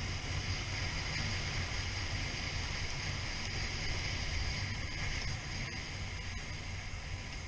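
Steady riding noise from a Suzuki SV650 motorcycle on the move: wind rushing over the helmet microphone, with the V-twin engine's low drone beneath it.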